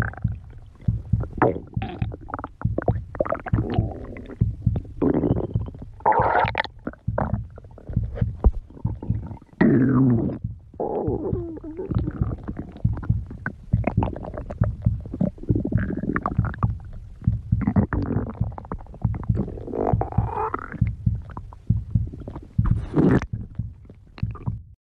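A person's stomach growling and gurgling: a continuous low rumble broken by many short gurgles. Several drawn-out squeals glide up and down in pitch.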